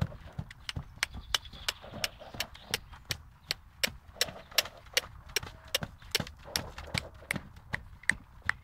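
Hoofbeats of a horse trotting on a sand arena: a steady two-beat rhythm of sharp footfalls, about three a second.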